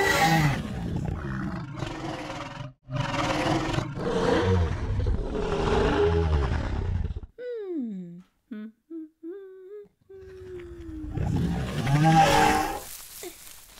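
Monster growling and roaring, rough and loud, in two long stretches with a short break, then a few seconds of a soft, wavering hum that slides up and down in pitch, then another roar near the end.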